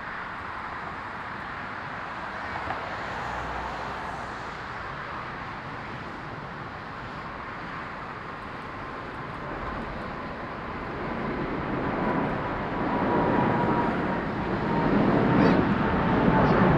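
Jet airliner engines: a steady rush with a whine that falls slightly in pitch, growing louder over the second half as the aircraft comes closer.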